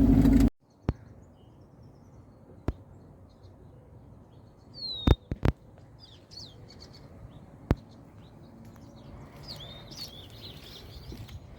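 A running engine cuts off abruptly about half a second in, leaving faint outdoor ambience with scattered bird chirps, louder near the end, and a few sharp clicks.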